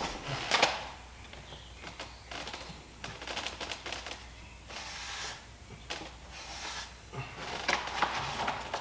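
Scattered clicks, scrapes and rustles of hands working with tools, with a louder click about half a second in, a short rustle about five seconds in, and a few more clicks near the end.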